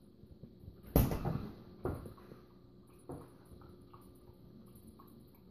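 Knocks and thuds of a refrigerator door being tugged at by a dog pulling on it, the loudest about a second in, then two weaker knocks near two and three seconds in.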